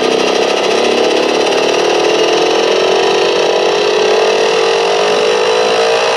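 An engine running, its pitch rising slowly and smoothly as it gradually speeds up.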